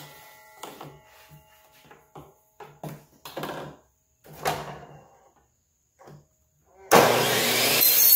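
Lengths of PVC pipe knocking and clattering against the miter saw table as they are moved into place, then about seven seconds in a DeWalt miter saw starts suddenly with a rising motor whine and cuts through PVC pipe.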